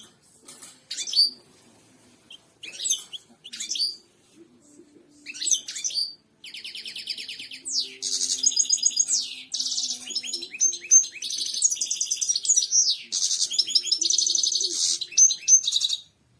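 European goldfinch singing: a few short twittering phrases, then from about six seconds in a long unbroken song of fast trills and liquid sweeping notes that stops just before the end.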